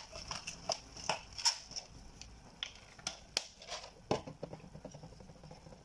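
Black pepper being ground with a hand-twisted pepper mill: a quick run of crunching clicks, then a few scattered clicks and a single knock about four seconds in.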